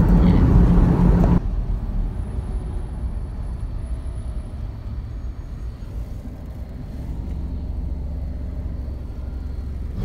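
Low engine and road rumble heard from inside a car's cabin while driving. It is louder for about the first second and a half, then drops suddenly to a softer steady hum.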